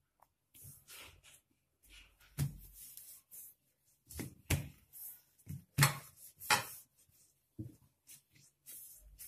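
Hands rolling a layered sheet of paratha dough into a tight log on a round stone rolling board: soft rubbing with irregular knocks and thumps, the loudest a little past the middle.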